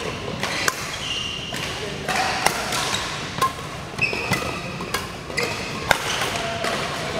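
Badminton rally: four sharp cracks of rackets striking a shuttlecock, about one every second and a half to two seconds, with short shoe squeaks on the court between hits.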